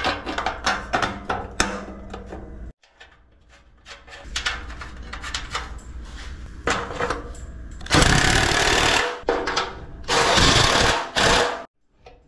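Metal clinks and knocks as the marker light and bracket are handled and fitted. These are followed by two loud bursts of rough mechanical noise, about eight and ten seconds in.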